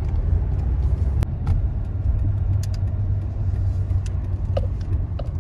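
Toyota Sienna minivan driving, its engine and tyre noise heard from inside the cabin as a steady low rumble, with a few faint clicks.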